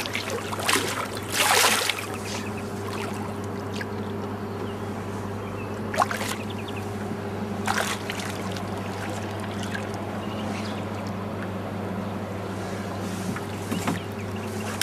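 A boat motor runs with a steady low hum under lapping water, with a brief splash about a second and a half in and two short knocks later on.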